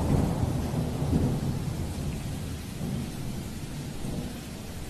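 Low rumble of thunder slowly dying away over a steady hiss of rain.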